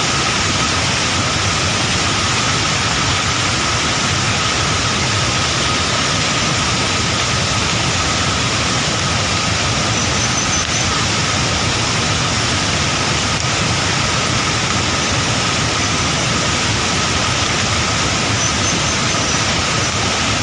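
Fast-flowing floodwater rushing in a loud, steady, unbroken stream of noise, with a faint steady high tone running under it.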